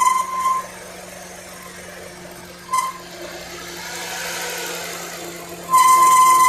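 A squeak from a vehicle, heard as a high-pitched squeal that comes and goes. It fades out about half a second in, returns as a short chirp near the middle, and starts again as a longer steady squeal about a second before the end. A low steady hum runs underneath.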